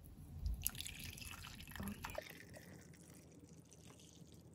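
Hot coffee being poured from a coffee-maker carafe into a mug, a faint splashing trickle that is strongest in the first couple of seconds and then tails off.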